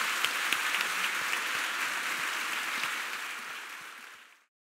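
Audience applauding, a dense patter of many hands clapping that fades out near the end and cuts off to silence.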